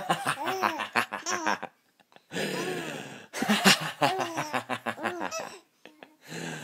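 Baby laughing in long runs of quick, rhythmic laughs, with a short break about two seconds in and a brief burst near the end.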